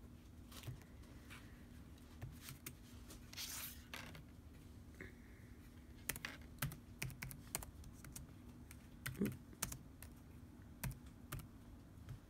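Faint typing on a computer keyboard: irregular key clicks, some in quick little runs, with pauses between.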